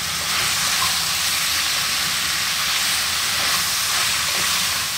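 Chunks of potato, leek, carrot and beetroot frying in hot coconut oil in a large aluminium pot over a lively heat: a steady sizzle as a wooden spatula stirs them.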